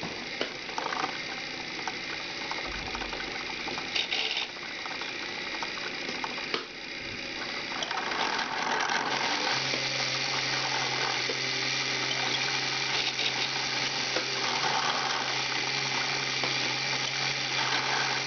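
LEGO motors and plastic gear trains of a painting machine running, a steady whir with fine rapid clicking from the gears. A low steady hum joins about halfway through.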